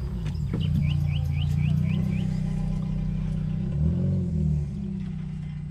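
An engine running steadily, with a brief rise and fall in pitch about four seconds in. A bird calls a quick run of about six rising chirps near the start.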